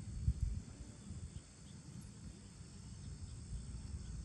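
Outdoor ambience: an irregular low rumble, loudest about a third of a second in, with a faint steady insect chirring high above it.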